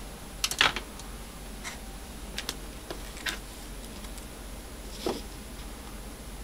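Light clicks and taps of multimeter test probes against connector pins: a quick cluster of clicks about half a second in, then scattered single taps every second or so.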